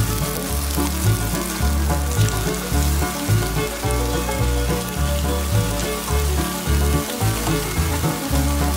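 Egg-battered beef slices sizzling in hot oil in a frying pan, under background music with a bass line.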